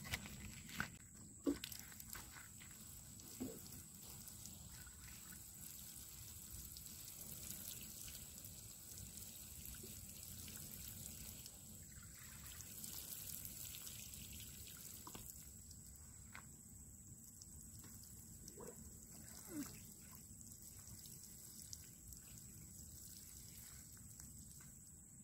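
Faint trickle and drip of water pouring from a plastic watering can onto dry soil, with a few footsteps on the dirt in the first few seconds.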